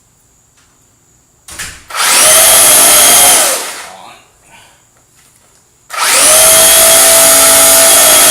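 Traxxas Bandit VXL RC car's brushless motor whining at full throttle with its wheels spinning in a burnout, in two bursts. The first lasts about a second and a half and winds down; the second starts about six seconds in and holds steady.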